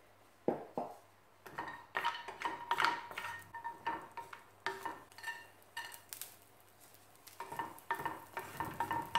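Wooden spatula stirring and scraping almonds and raisins frying in ghee in a nonstick pan, in irregular strokes starting about half a second in.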